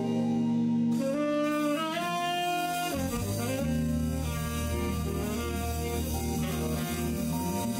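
Small jazz band playing: a saxophone plays held, bending melody notes over electric bass and keyboard.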